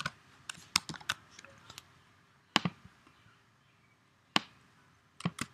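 Computer keyboard keys clicking in irregular bursts of typing. A quick run of keystrokes comes in the first two seconds, then single key taps with long pauses, and a few more keystrokes near the end.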